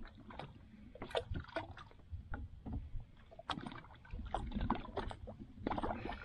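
Water sloshing against the hull of a small outrigger boat, with scattered small knocks and clicks while a squid handline is hauled in hand over hand.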